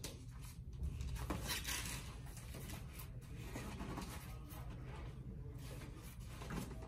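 Rigid plastic cervical collar being sized and fitted around a manikin's neck: faint, irregular rubbing and rustling of plastic and foam, with a few short scratchy rasps.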